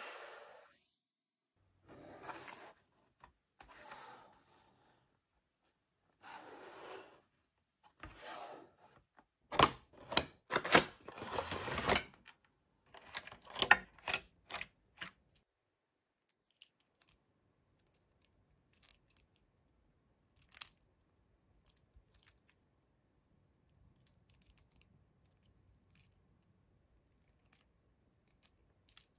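Toy packaging being handled and opened: a few short rustles, then about halfway through a burst of loud sharp crinkling and clicking, followed by faint scattered clicks.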